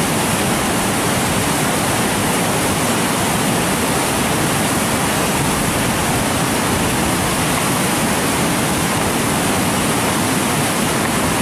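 Swift river rushing over boulders, a steady loud wash of whitewater.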